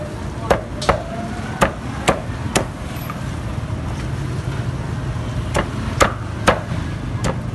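Meat cleaver chopping charcoal-roasted duck on a chopping block. It gives five sharp chops in quick succession, a pause of about three seconds, then four more chops.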